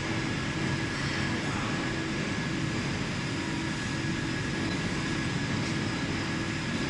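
Steady drone of a running thermal shock test chamber, its refrigeration and air-circulation machinery working, with a faint constant whine over it.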